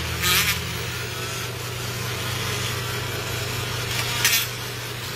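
Handheld rotary tool running steadily as its small bit polishes an engine freeze plug, with two brief harsher bursts, near the start and about four seconds in.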